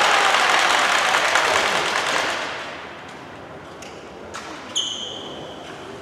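Loud crowd noise in a sports hall dies away over the first two and a half seconds, followed by a couple of sharp knocks. A short, high referee's whistle blast sounds a little before the end.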